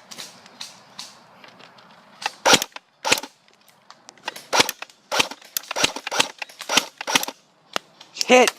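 Airsoft guns firing sharp single shots at an irregular pace, about a dozen cracks. A voice shouts near the end.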